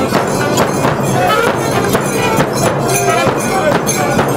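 Large frame drums beaten with sticks in a steady, even rhythm: the drumming of a Romanian bear dance. Short high pitched calls ride over the beat.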